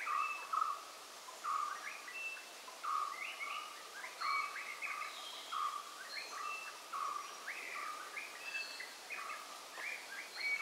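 Birds chirping: short chirping phrases repeated about once or twice a second over a faint background hiss.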